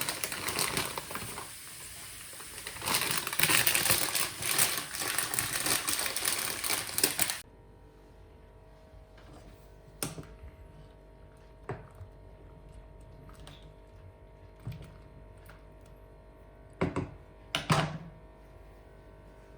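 Rapid tapping and clattering of kitchen work for about seven seconds, then an abrupt drop to a quiet kitchen with a steady hum and a few scattered knocks, two close together near the end.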